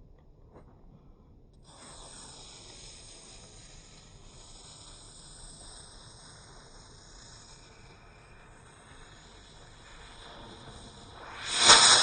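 A lit firework hissing steadily from about two seconds in, then a much louder burst lasting about a second near the end.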